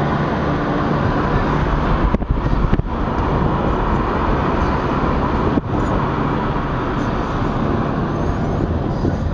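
Steady road and wind noise of a moving car, heard from inside the car. The sound cuts out for an instant three times, twice about two seconds in and once past the middle.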